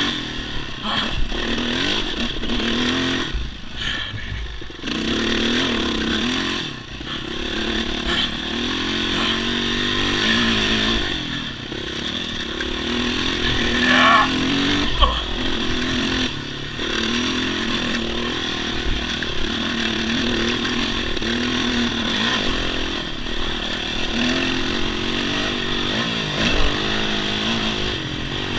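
Yamaha dirt bike engine running as the bike is ridden along a dirt trail, its pitch rising and falling again and again with the throttle and gear changes. A couple of sharp knocks come about halfway through.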